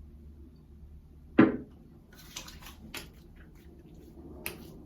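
A single thump about a second and a half in, then several light clicks and taps: shaving gear such as the aftershave bottle being handled and set down on a hard surface.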